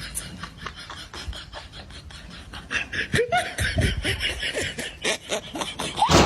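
A person laughing in rapid short bursts, getting louder about three seconds in.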